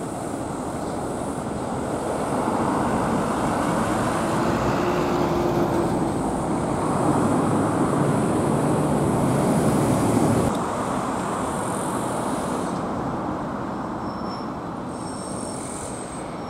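City street traffic heard from above the road: a heavy vehicle approaches and passes, its noise swelling through the middle and dropping away suddenly about ten and a half seconds in, leaving lighter traffic.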